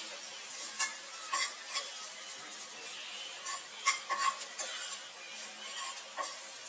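Steel spoon stirring and scraping sliced onions around a non-stick kadai, with a light sizzle of frying underneath and a few sharper scrapes and clinks of the spoon against the pan.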